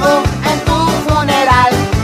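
Rock music playing an instrumental passage: a steady bass-and-drum beat under a wavering lead melody.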